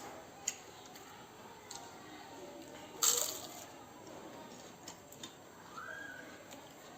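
Close-up eating sounds of a meal of rice and fish curry: small wet squishes and clicks of chewing and handling food. A louder, hissing burst comes about three seconds in.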